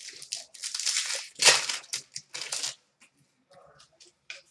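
Crinkling and rustling of plastic card packaging and sleeves being handled, in a run of bursts for the first couple of seconds, then only a few faint ticks.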